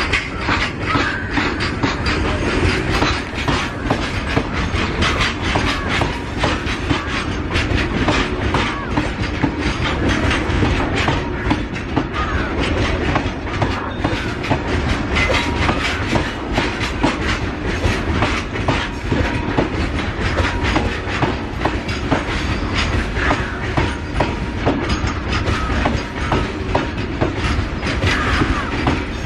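A long train of BCNHL covered freight wagons rolling past close by, wheels and bogies clattering on the rails in a steady run of rapid clicks and rumble.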